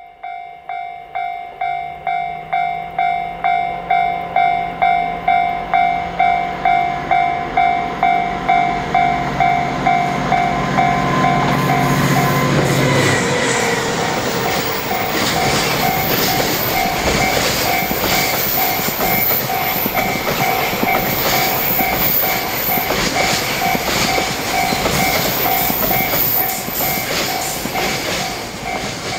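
A level-crossing warning bell rings about twice a second while a JR Freight DF200 diesel-electric locomotive approaches, its engine note building, and passes about halfway through. Loaded container wagons then roll by with a steady clatter of wheels on the rails, the bell still ringing.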